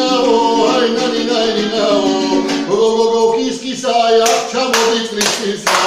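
A man singing a Georgian folk song in full voice on a wordless "ai na ni na" refrain, with hand claps joining in time about two-thirds of the way in, roughly two a second.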